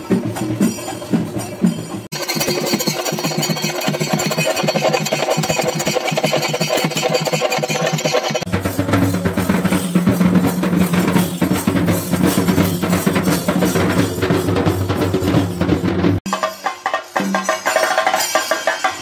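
Kerala festival percussion: a group of chenda drums beaten fast with sticks. The sound cuts off abruptly about two seconds in and again near the end. From about eight seconds in, a steady low tone sounds under the drumming.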